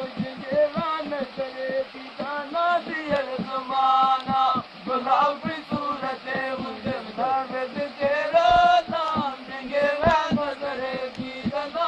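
A man singing a chant-like melody with long held notes over a steady drum beat.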